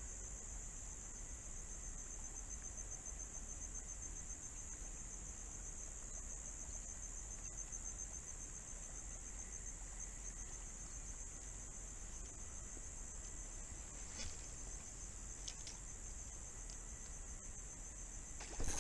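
Steady, high-pitched chorus of insects at dusk, a fast even trilling that runs on without a break. A few faint ticks come in the last few seconds.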